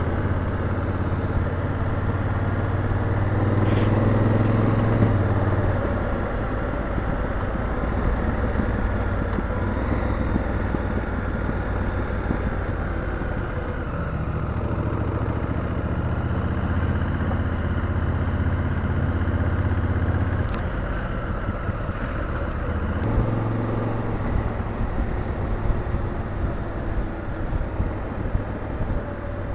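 Motorcycle engine running at road speed, heard from on the bike with wind and tyre noise. The engine note changes pitch a couple of times as the throttle changes.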